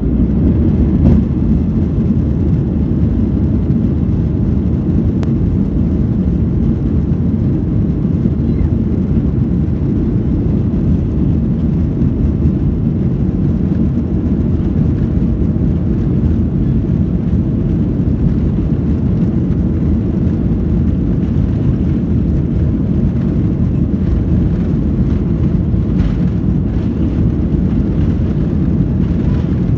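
Airbus A321neo jet engines at takeoff, a loud, steady low rumble that neither rises nor falls in pitch.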